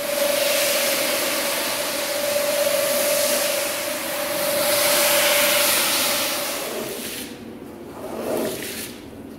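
Rotary carpet-scrubbing machine running on a wet, foamy carpet: a steady motor hum under the loud swish of the spinning brush head churning shampoo. The hum stops about six seconds in, and quieter hand brushing of the wet pile follows near the end.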